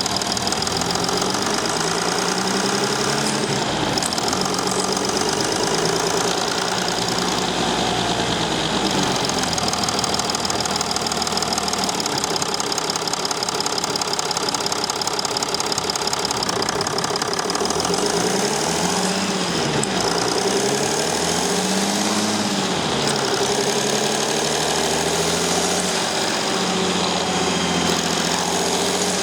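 Mercedes Sprinter 219 CDI's V6 diesel engine running steadily. Its engine speed rises and falls a few times a little past the middle.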